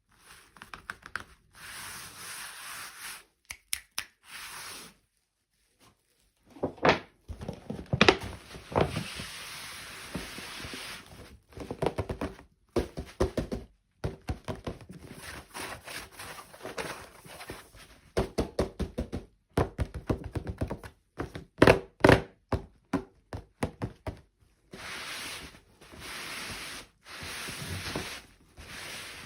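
Hands handling a plastic toy doll and its packaging: an irregular run of clicks, knocks and thunks, with stretches of rustling in between.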